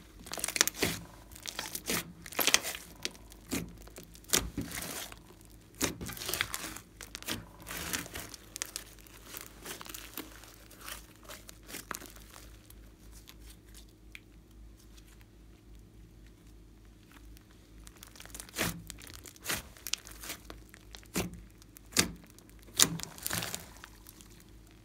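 Glossy slime being stretched, pulled apart and squished by hand, making sticky crackling and tearing sounds in irregular bursts. The bursts thin out for several seconds in the middle, then come thick again near the end.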